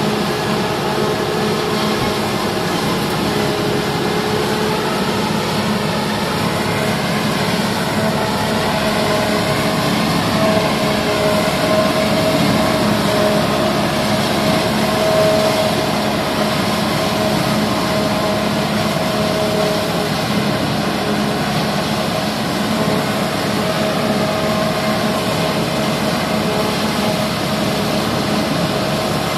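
Tractor engine working under load while its forage chopper cuts and blows Napier grass, a steady drone with a few held tones over a rushing noise.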